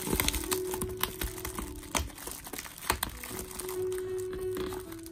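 Clear plastic packing wrap crinkling and rustling as hands pull a CD case out of it, with several sharp crackles. Soft background music plays underneath.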